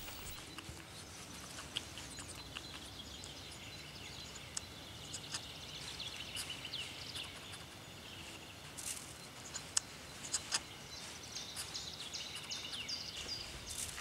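Hedgehogs feeding on fallen apples in grass, heard faintly as scattered small clicks and crunches over a soft outdoor hiss, with short high bird chirps, most of them in the second half.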